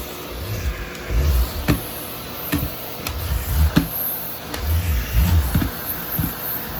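Vacuum cleaner running while its floor head is pushed back and forth over tatami mats, with low thuds about once a second and scattered sharp clicks.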